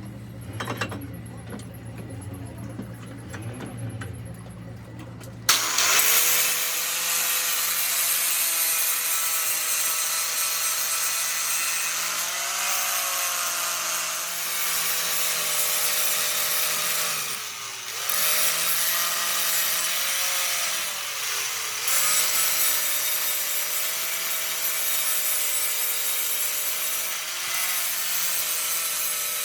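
Power tool working metal on a differential ring gear: harsh grinding noise with a steady motor whine, starting suddenly about five seconds in. The whine sags in pitch briefly three times as the tool is loaded.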